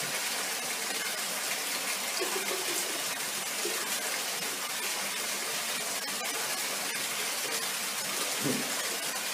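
Tap water running steadily from a bathtub faucet into the tub, a constant rushing of water.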